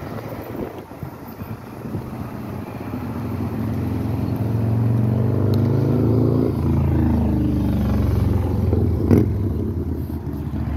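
A motor vehicle driving past on the road, its engine note building over several seconds, loudest a little after the middle, then dropping in pitch as it moves away. A single short knock comes near the end.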